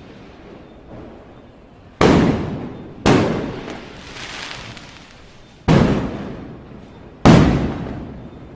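Firecrackers going off: four loud bangs, the first about two seconds in, the next a second later, then two more near the end, each echoing away over about a second.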